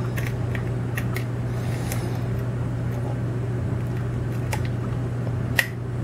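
Lock pick clicking against the pins of a Scandinavian oval lock cylinder under tension: a few faint, sparse metallic clicks, with a sharper one near the end, over a steady low hum.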